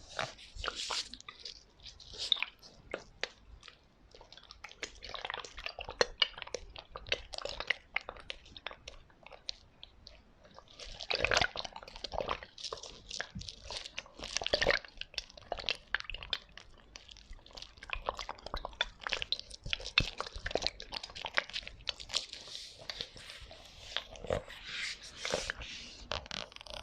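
Close-miked ASMR tapping and knocking on assorted objects: rapid, irregular taps and crisp crunchy clicks, with a few louder flurries.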